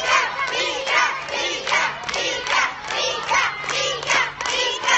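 A group of children cheering a runner on, shouting and clapping in a steady rhythm of about two shouts a second.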